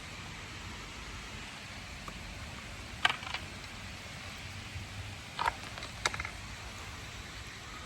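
Steady hiss of light rain falling, with a few short sharp clicks in the middle of it.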